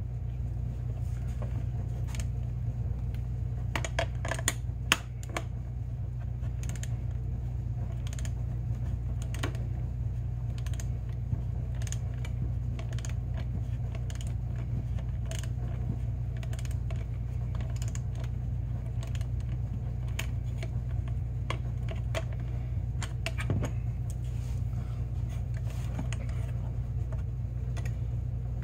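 Hand tools and small metal fasteners clicking and tapping at irregular intervals, over a steady low hum. The sharpest clicks come about four to five seconds in.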